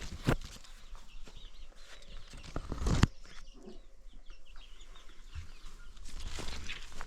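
Chickens clucking and chirping in short calls, with a sharp knock shortly after the start and a louder rush of noise just before the middle.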